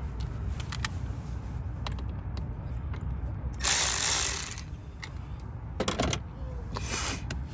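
Socket ratchet clicking as a hose clamp on the cold air intake is loosened. There is scattered clicking, then a louder run of rapid clicks about halfway through and a shorter one near the end.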